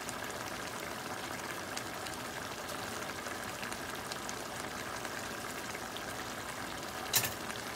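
Salted-fish sauce with peppers and butter simmering in a metal pan: steady bubbling with a faint crackle. One sharp knock near the end.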